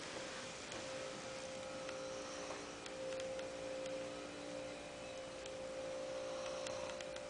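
A steady, faint hum held on one tone, over quiet room noise with a few faint ticks.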